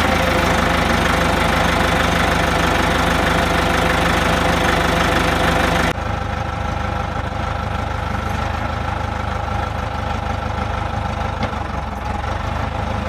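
The four-cylinder diesel engine of a 1980 Caterpillar D3 bulldozer running steadily. About six seconds in, the sound abruptly becomes quieter and duller, and stays that way.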